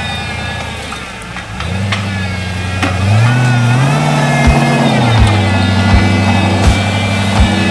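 Jeep Wrangler's engine revving up and down under load as it crawls over a rock ledge. It climbs in pitch twice and eases off about two-thirds of the way through. A dull thump repeats about every three-quarters of a second through the second half.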